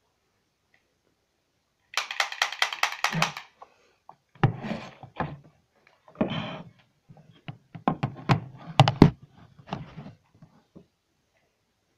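Close handling noises: a quick run of rattling clicks about two seconds in, then a string of knocks and thumps near the microphone as an object is handled in front of it.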